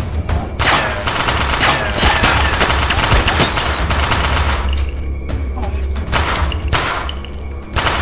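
Handgun gunfire in a gunfight: a dense volley of rapid shots, thinning to single shots spaced about half a second apart in the second half, over music with a steady low bass.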